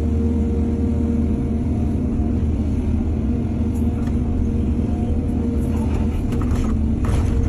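Excavator's diesel engine running steadily under work, with a few short knocks and clatter near the end.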